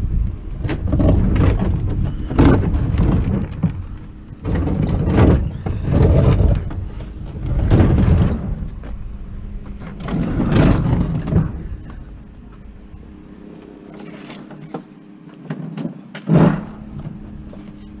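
Large metal refrigerator being tipped and shifted on pavement: a run of scrapes and bumps of its cabinet, coming in surges every couple of seconds, with a faint steady hum underneath.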